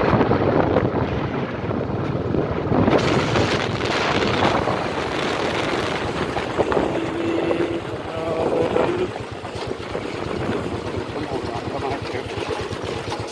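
Wind rushing over the microphone of a moving vehicle on a dirt track, with its engine running underneath; the rush eases a little about nine seconds in.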